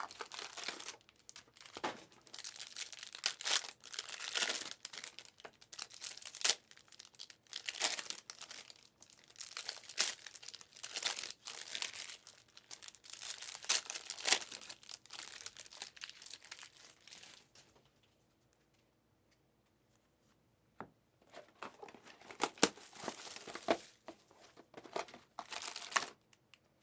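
Trading-card packs being torn open, their wrappers crinkling in irregular bursts as cards are handled. The rustling stops for a couple of seconds about two-thirds of the way through, then resumes.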